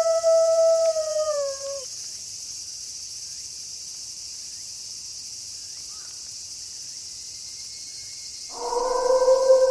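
A wolf howl held on one steady pitch falls off and ends about two seconds in. A steady high hiss fills the gap. A second, lower howl starts near the end.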